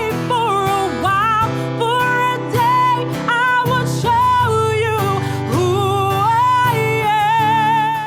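Music: a song with a wavering sung melody over guitar and steady low notes.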